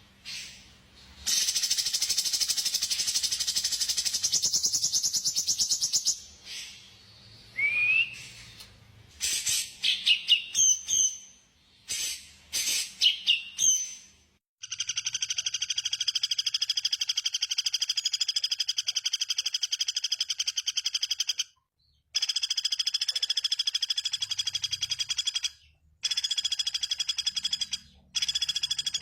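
Recorded songbird calls: a long, rapid trill, then several short rising whistles and chirps, then a steady, fast, buzzy trill that cuts off abruptly and restarts a few times, as in an edited, looped birdsong recording.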